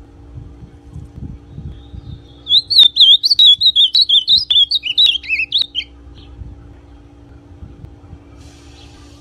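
Brown-plumaged (pardo) ultramarine grosbeak (azulão) singing one loud, warbling phrase of quick up-and-down notes that lasts about three seconds, starting a couple of seconds in.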